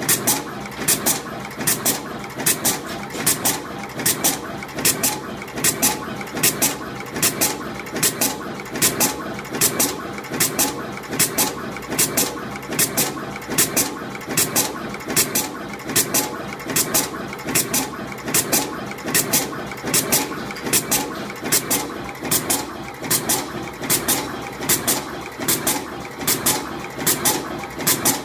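Automatic single-head wire twisting and terminal crimping machine running continuously. A pair of sharp clicks repeats about every second as it cycles through each ultra-short wire, over a steady mechanical hum.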